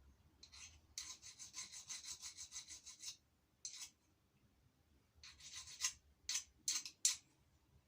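Fine hand file scraping across the edge of a stainless steel bolt head to deburr it: a quick run of short strokes, about four a second, then a pause and a few more separate strokes near the end.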